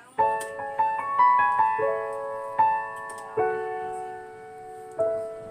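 Background piano music: a gentle melody of struck notes and chords that ring and fade.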